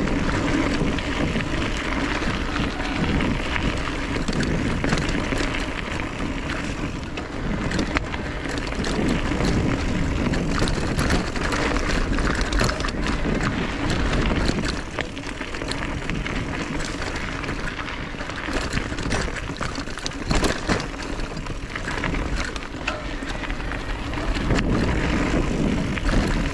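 Mountain bike riding over a rough dirt and stone singletrack: tyres rolling on the gravel, with frequent rattles and knocks from the bike, under steady wind noise on the microphone.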